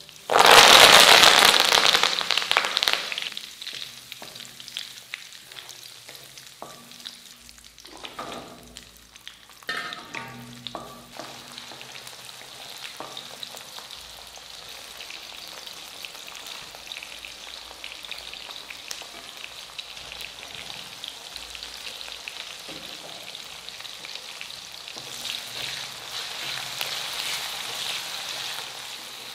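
Curry leaves dropped into hot oil in an aluminium kadai with dried red chillies burst into a loud spluttering sizzle that dies down over about three seconds. Then a steady frying sizzle as shallots and garlic fry, stirred with a wooden spatula, with the sizzle swelling again near the end.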